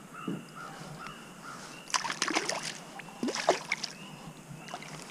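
Two bouts of splashing, about two and three seconds in, from a hooked fish thrashing at the water's surface beside the kayak. A bird calls over and over, about twice a second, in the background.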